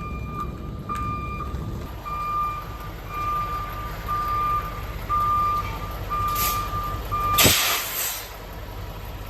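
Heavy truck backing up: its backup alarm beeps about once a second over the running diesel engine. About seven and a half seconds in there is a short, loud hiss of air.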